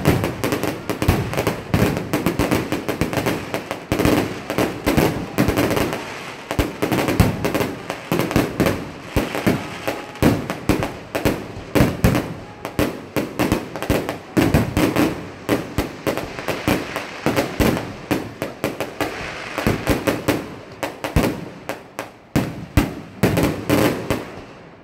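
Aerial fireworks shells bursting in a dense barrage, many sharp reports a second overlapping one another.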